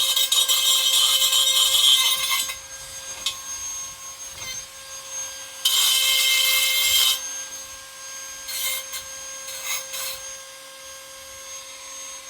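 Rasping scrape of a deburring tool working the freshly notched edge of a pipe: two long strokes of about two and a half seconds and a second and a half, then a few short scrapes, over the steady hum of a shop fan.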